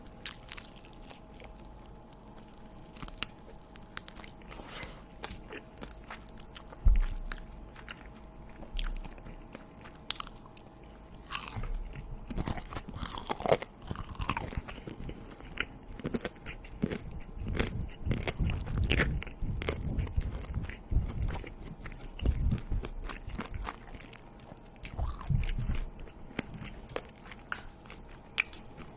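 A person biting and chewing crunchy food close to the microphone, with crisp crunches that come sparsely at first and get much busier about halfway through. A single thump stands out about seven seconds in.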